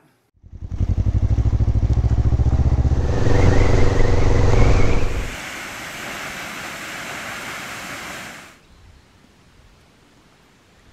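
Kawasaki ER-5's parallel-twin motorcycle engine running and accelerating, its pitch climbing about three seconds in. About five seconds in it gives way to a steady rushing noise that lasts about three seconds.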